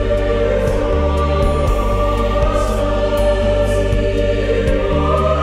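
Ambient chill-out music: choral voices holding long notes over a bass line that steps between notes every second or so, with faint soft swishes in the high end.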